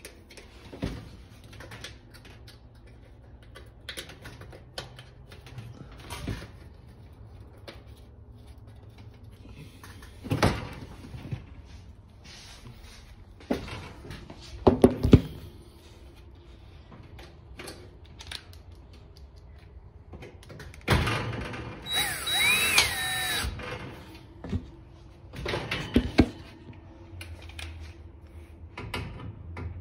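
Intermittent clicks, knocks and metallic rattles from hand work on a range's sheet-metal body while the cooktop's mounting bolts are fitted. There are a few sharper knocks, and about three-quarters of the way in there is a louder burst of noise lasting about two seconds.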